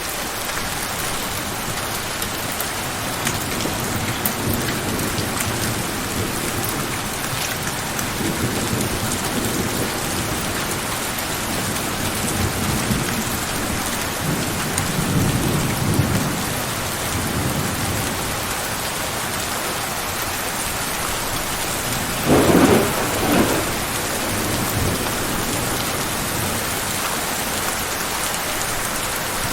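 Steady heavy rain falling on a surface, with thunder rumbling in the distance; the loudest thunder crack comes a little past two-thirds of the way through.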